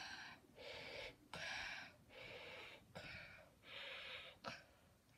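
A boy imitating Darth Vader's mechanical respirator breathing through a hand cupped over his mouth: about six breaths alternating in and out, each under a second long.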